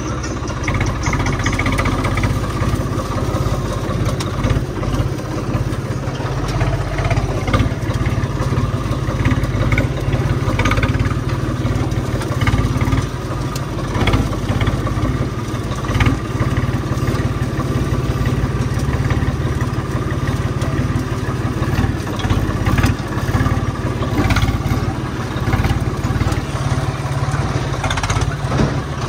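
Tractor's diesel engine running steadily, heard from the driver's seat while driving, with occasional knocks and rattles.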